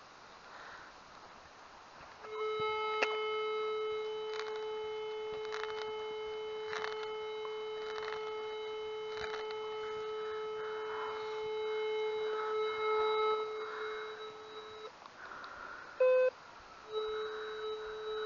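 Handheld metal detector sounding a steady low signal tone for about twelve seconds, then a brief higher, louder beep, then the low tone again. Faint ticks come about once a second under the first part of the tone. The steady signal comes from buried metal spread all around, which the detectorist suspects might be underground cabling or fencing.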